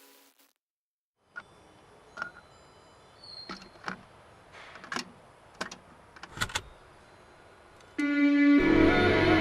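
Background music changing tracks: one piece fades out, then a quiet stretch of scattered short clicks and knocks over a faint hiss. Near the end a held low tone comes in and a new ambient piece starts loudly.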